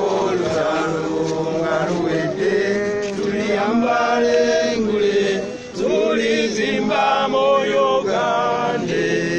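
A group of people singing together in a chant-like song with long held notes, with a short break between phrases about halfway through.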